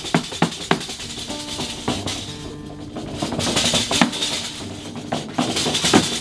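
Pizzica folk music led by a tamburello, a frame drum with jingles, struck in a fast, steady beat, with a few pitched notes from another instrument in the middle.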